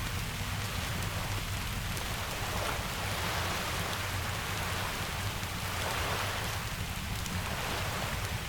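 Steady heavy rain over a constant low rumble, the hiss swelling and easing every few seconds.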